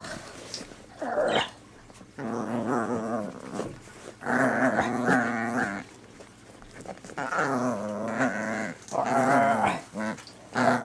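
A dog growling in play while tugging on a toy, in a run of growls of about one to one and a half seconds each, with short pauses between.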